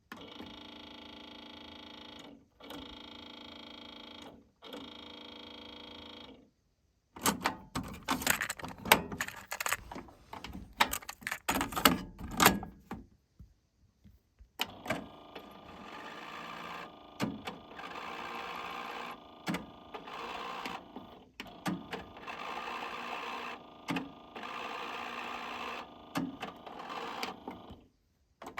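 Sony TC-WR670 cassette deck's tape transport working: a steady motor whir in three short runs, a clatter of clicks and clunks from the mechanism from about 7 to 13 seconds in, then a longer steady whir with scattered clicks. The deck needs a new drive belt.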